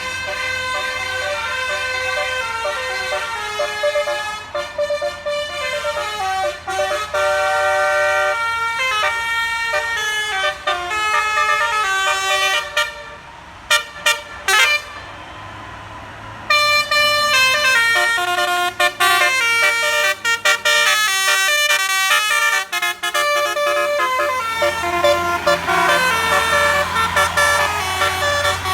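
Basuri musical bus horn playing a melody of quick, stepped notes, breaking off for a few seconds past the middle before starting again. A low engine rumble runs underneath.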